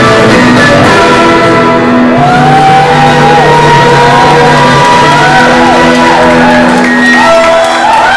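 Live band of keyboard, fiddle and guitars holding a sustained chord at the end of a tune, while the audience whoops and shouts over it with rising and falling calls.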